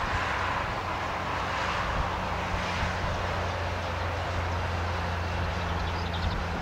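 Steady rushing of road traffic passing on the road below, with a steady low hum underneath.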